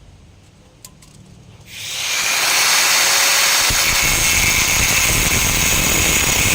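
A power tool starts up about two seconds in and runs steadily.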